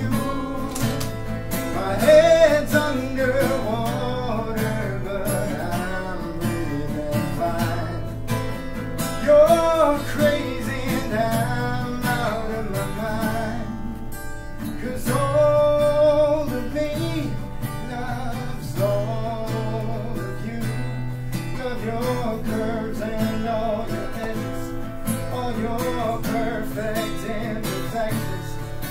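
Acoustic guitar played solo, a picked melody over chords with a sustained low bass.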